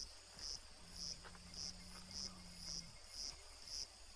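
Cricket chirping at night, short high chirps repeating evenly about twice a second. A faint low hum sounds under it for about two seconds in the middle.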